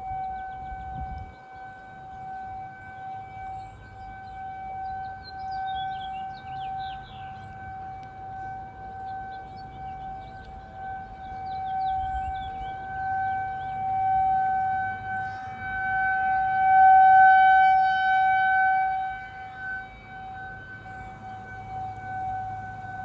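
Distant outdoor tornado siren on its monthly test: a rotating siren, which the owner thinks is a Federal Signal, holding one steady high-pitched wail that swells and fades as it turns, loudest about two-thirds of the way in. Birds chirp faintly.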